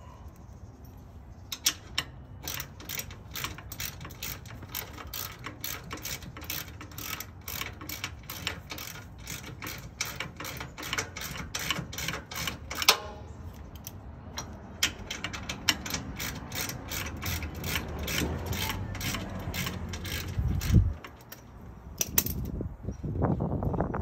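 Ratchet wrench clicking in two long runs of quick, even clicks as the trailer jack's mounting bolts are tightened, with a short break between the runs. A knock near the end.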